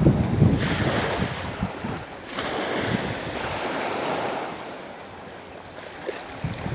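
Sea waves washing in surges, with wind buffeting the microphone.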